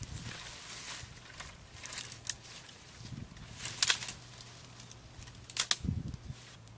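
Scattered crackles and sharp snaps of dry twigs and leaves, with two louder snaps about four seconds in and near the end, and a few soft low thumps.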